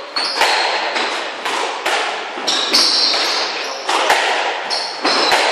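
A squash rally: sharp hits of the ball off rackets and walls, about one or two a second, each ringing briefly in the court. Between the hits come high squeaks of court shoes on the wooden floor.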